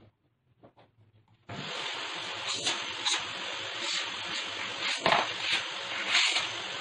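Panasonic canister vacuum cleaner coming on suddenly about a second and a half in, then running with a steady hiss that swells and dips as the nozzle is worked over a sofa.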